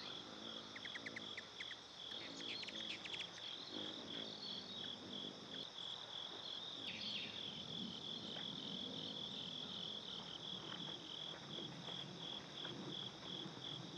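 Crickets chirping in a steady, even pulse, about two or three chirps a second, with a quick run of short chirps about a second in.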